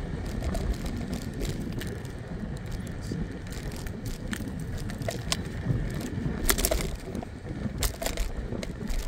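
Ride noise from a moving scooter: a steady rumble of wind and wheels on pavement, with scattered clicks and knocks. A cluster of sharp knocks comes about two-thirds of the way through.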